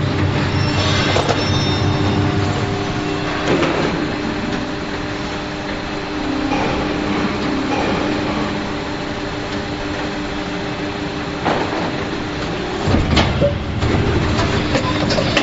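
Injection moulding machine running a mould test: a steady machine hum with a few clunks and clicks, the loudest about 13 seconds in and a quick run of clicks near the end.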